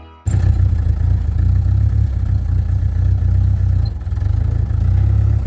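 Jeep CJ5 engine idling steadily, a low rumble with rapid even pulses, cutting in suddenly just after the start.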